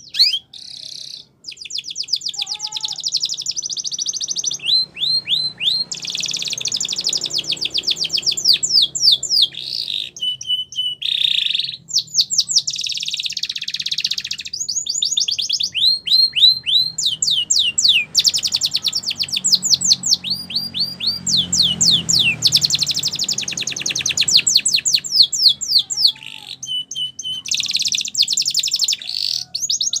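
Domestic canary singing a long, nearly unbroken song of fast trills and rolls. Each phrase is a rapid run of repeated sweeping notes, and the phrases change every second or two with only brief breaks.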